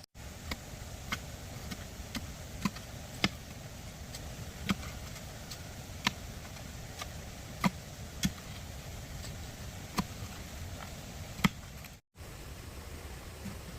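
Irregular sharp knocks of a hand tool striking bamboo, roughly one a second with uneven spacing, over a steady background hiss; the louder blows come about two-thirds of the way through and near the end.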